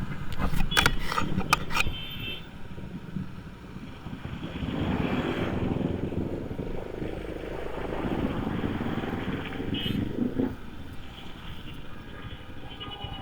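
Motorcycle riding through city traffic: its engine and the surrounding traffic make a steady noise that swells and eases, with a few sharp knocks in the first two seconds.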